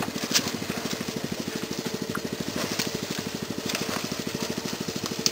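Small engine running steadily with a rapid, even putter, with a few faint clicks over it.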